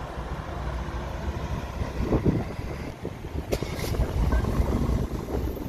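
Mercedes-Benz G 500 4x4² V8 engine and side-exit exhaust running low and easy as the truck drives slowly past, with wind buffeting the microphone.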